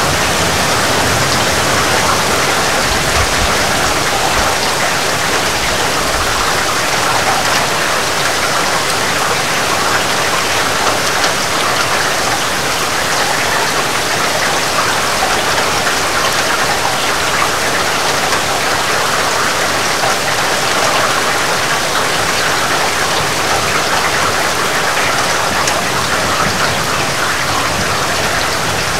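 Heavy rain falling steadily, an even, unbroken hiss of countless drops.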